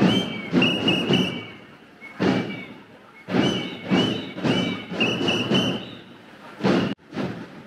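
A run of about a dozen loud, irregular thumps from a street protest march, many of them followed by a short ringing tone.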